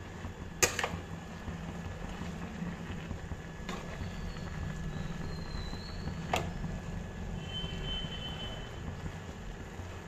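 Metal spatula stirring grated carrots in a thin, light metal kadhai, with a sharp clang of the spatula against the pan about half a second in and lighter knocks near four and six seconds in, over a steady low rumble.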